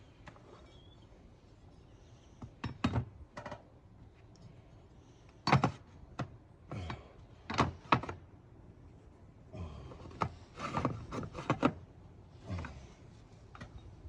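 Irregular sharp knocks and thunks on wooden clapboard siding as the patch board is worked into place and fastened, in small clusters, the loudest about five and a half and eight seconds in.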